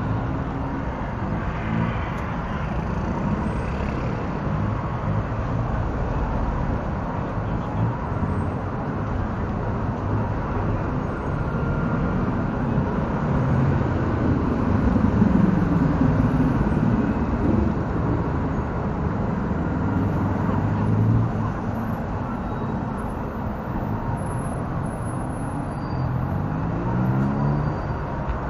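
Busy street traffic noise, heard from low on the pavement, with vehicle engines rising and falling in pitch now and then, most clearly about halfway through and again near the end.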